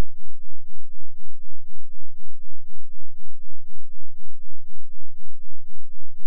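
2 Hz sine-wave bass test tone played at a loud level. It is heard as a deep, even pulsing whose loudness swells and dips about four times a second, twice per cycle of the wave.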